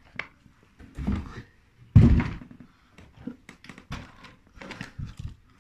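Handling noises as a plastic 1/12-scale RC truck is lifted out of its cardboard packaging and set down: a few thuds, the loudest about two seconds in, among lighter knocks and clicks.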